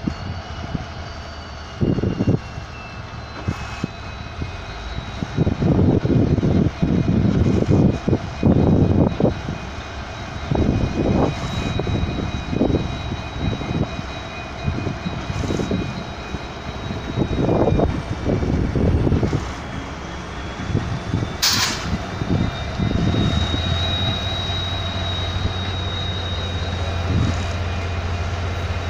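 Diesel locomotive approaching slowly at the head of a passenger train, its high whine slowly falling in pitch over a low engine hum that steadies as it comes alongside. Wind buffets the microphone in gusts through the first part, and a short sharp hiss comes about two-thirds of the way in.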